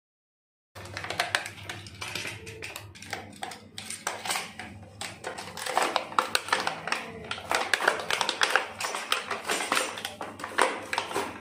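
Clear plastic blister packaging of a toy tea set crinkling and crackling as hands handle and pull at it. It is a dense run of small clicks that starts about a second in.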